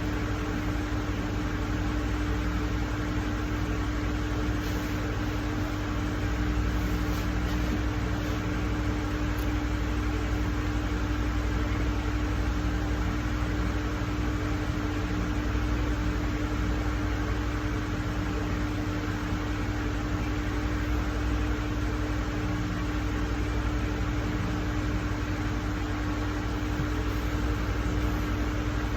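Steady background hum and hiss, like a running fan, with one constant low tone.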